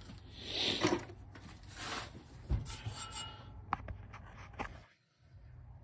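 Rubbing and rustling handling noise with a few sharp clicks and knocks, as hands move over engine-bay parts and the hand-held camera.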